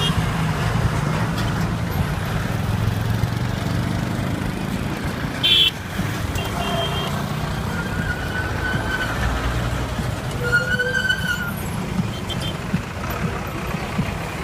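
Steady engine rumble and road noise of a moving bus, heard from inside it, amid traffic. Vehicle horns sound briefly several times; the loudest is a short blast about five seconds in.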